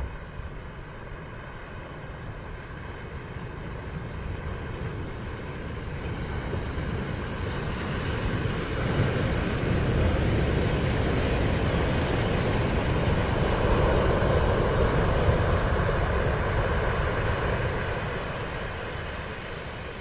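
Ocean surf on a sandy beach: waves breaking and washing up the shore as a rushing noise that swells to its loudest around the middle and eases off near the end.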